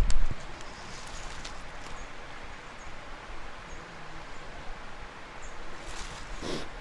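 Footsteps and rustling through dry leaves and brush on a forest slope, with a loud low thump at the start and a brief louder rustle near the end. A few faint high chirps sound now and then behind it.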